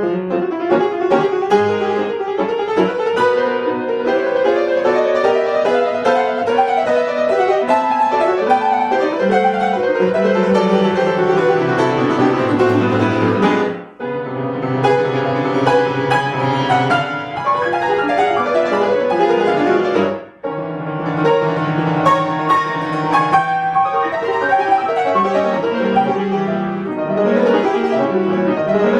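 Piano playing a classical-style piece, with runs of notes and two short breaks in the phrasing, about 14 and 20 seconds in.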